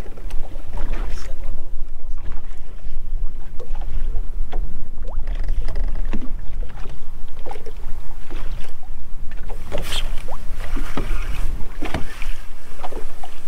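Small waves lapping and slapping against a bass boat's hull in irregular short splashes, over a steady low rumble of wind on the microphone.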